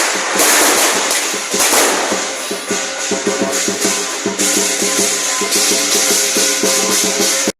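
Lion dance percussion: a drum beating a fast rhythm under clashing cymbals, cutting off abruptly near the end.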